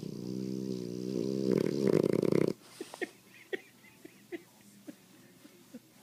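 Snoring from under a blanket: one long, pitched snore that grows louder and cuts off suddenly about two and a half seconds in, followed by a few faint clicks and snuffles.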